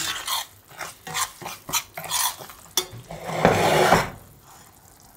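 Spatula scraping and stirring mung-lentil flour that is roasting in ghee in a metal frying pan, with a light sizzle: quick strokes, two or three a second. A louder scraping rush comes a little after three seconds in, and the sound stops about four seconds in.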